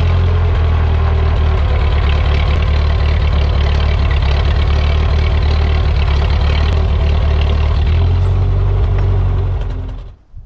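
Farm tractor engine running steadily at a low, even pitch, fading out near the end.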